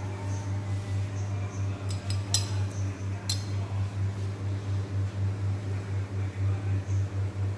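Laboratory glassware clinking twice, sharply, about two and three seconds in. Under it runs a steady low hum that pulses in loudness about twice a second.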